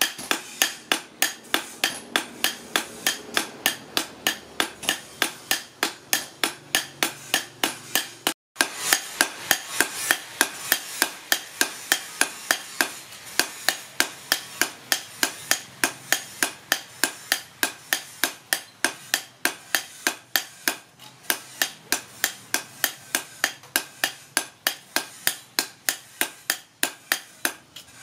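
Hand hammers striking a cleaver blade on a steel anvil block while forging it, sharp metal blows in a steady rhythm of about three a second. Two hammers take turns in the first part, and after a break about 8 seconds in a single hammer keeps the same pace.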